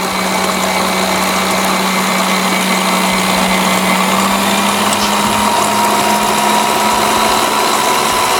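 Large planetary stand mixer running steadily, its beater creaming butter and sugar with the first egg in a stainless steel bowl: a constant motor hum, with a faint higher whine joining about halfway through.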